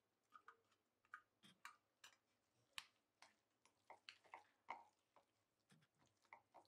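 Faint, irregular clicks and small wet squelches of a utensil stirring flaked tuna and mayonnaise in a bowl, knocking lightly against the bowl now and then.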